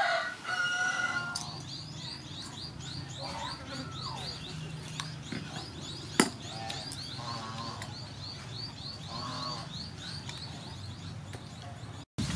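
A rooster's crow trails off in the first second, then a bird calls in a long, rapid run of short high chirps, with a few lower calls among them. A single sharp click is heard about halfway through.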